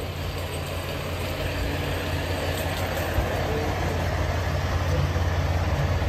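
Semi truck's diesel engine running close by, a steady low drone that grows gradually louder.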